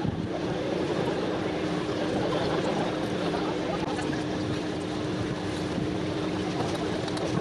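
Steady low mechanical rumble with a constant hum running through it, and wind buffeting the microphone.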